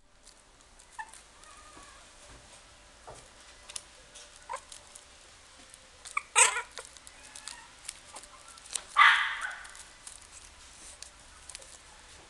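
Shih Tzu puppy giving a few short high yips and squeaks, the loudest two about six and nine seconds in, with light scratching and rustling as it moves about on a fleece bed.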